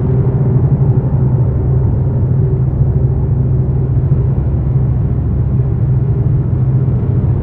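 Dark ambient noise drone: a dense, steady low rumble with a held low hum and faint higher tones, unchanging and unbroken.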